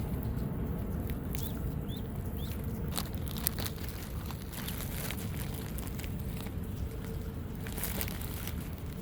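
Ducklings peeping: a few short, rising peeps in the first few seconds. Under them runs a steady low rumble of wind on the microphone, with scattered faint ticks.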